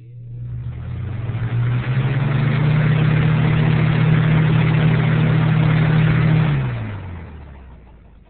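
Lasko box fan starting up: a motor hum that rises in pitch as the blades spin up, with a rush of air. It runs steadily, then about six and a half seconds in the hum falls in pitch and fades as the fan winds down.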